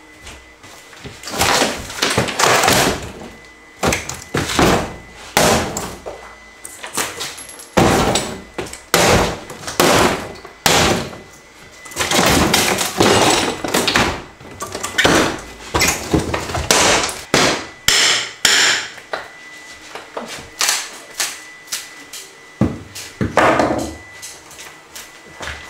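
Hammer and pry bar breaking apart wooden kitchen cabinets and wall panelling: an irregular string of sharp knocks and cracks, with some longer splintering crashes about halfway through.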